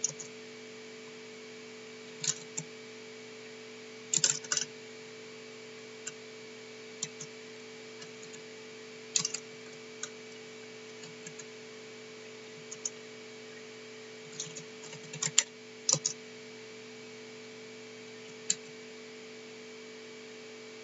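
Computer keyboard keystrokes, sparse and irregular, in small clusters with pauses between them, over a steady low electrical hum.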